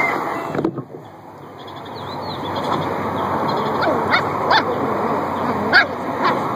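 A few short, sharp animal calls, yips or chirps, over steady outdoor background noise, most of them in the second half.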